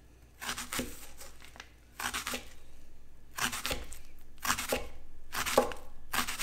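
Chef's knife slicing a red onion into thin rings on a plastic cutting board: about six separate cutting strokes, roughly one a second.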